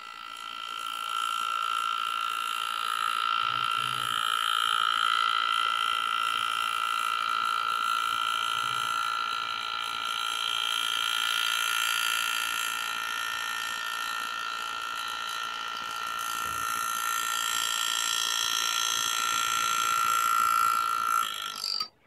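Pneumatic engraving handpiece driving a graver through a metal plate, a steady high-pitched buzz as it cuts a scroll line on its own with no hand pressure. It cuts off suddenly near the end.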